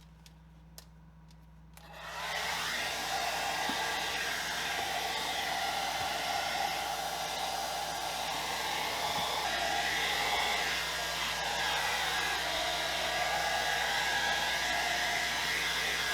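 Handheld hair dryer switched on about two seconds in, then blowing steadily, warming a freezer's back panel to thaw ice built up behind it.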